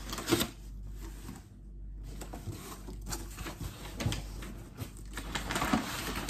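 A large cardboard box being ripped open by hand, then crumpled brown packing paper inside it crinkling and rustling as it is handled, in a busy, irregular crackle with a loud burst near the start.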